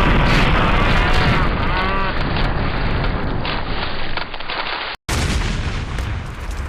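Loud, dense booming noise with wavering high chirp-like tones over it in the first two seconds; it cuts off abruptly about five seconds in and starts again at once.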